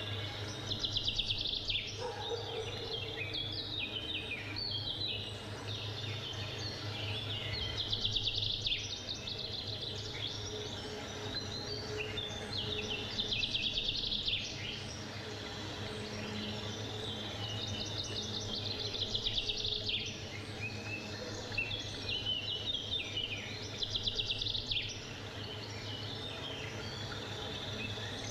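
Woodland birds singing. Phrases of quick trilled notes come roughly every five or six seconds over a steady low background rumble.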